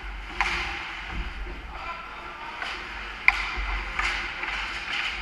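Ice hockey skates scraping on the ice, with sticks and puck clacking during a scramble in front of the net, and one sharp clack about three seconds in.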